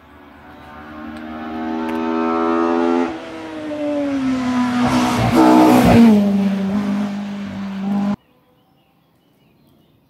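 Race car engine accelerating hard towards the listener, rising in pitch, dropping at a gear change about three seconds in, then climbing again. It passes close by around six seconds in, its pitch falling as it goes away. The sound cuts off suddenly about eight seconds in.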